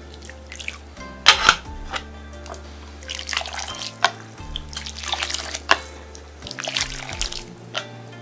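Water scooped with a metal ladle and poured back into a stainless steel pot of parboiling pork bones, trickling and splashing several times with knocks of the ladle on the pot. Background music plays throughout.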